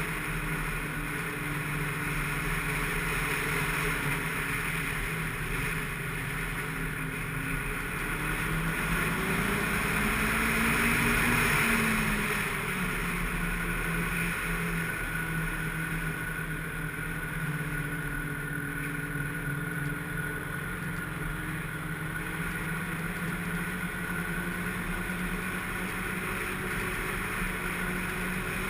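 Snowmobile engine running steadily under way, rising in pitch and getting louder about ten seconds in, then easing back off.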